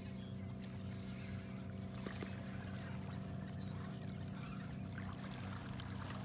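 A boat motor running steadily with a low, even hum.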